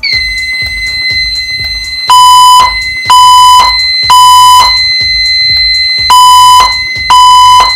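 Fire alarm system going into alarm after a manual pull station is pulled. A steady high-pitched buzzer tone starts at once. About two seconds in, the System Sensor speaker/strobes start the temporal-3 evacuation tone: three loud half-second beeps a second apart, a pause, then three more. This is the alert pattern that comes before the voice evacuation message.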